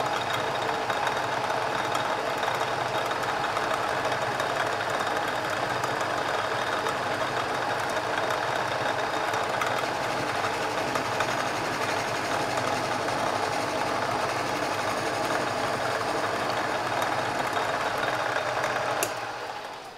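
Metal lathe running steadily with a geared whir while turning the outside of a bar held in its chuck. It is switched off near the end and the sound dies away quickly.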